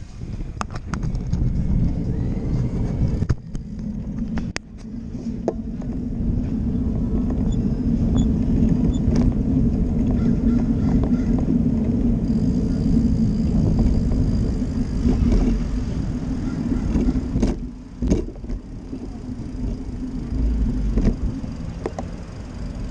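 Wind on the microphone and rumble of riding along a paved street, with a steady low hum through most of the stretch and a few sharp clicks and rattles.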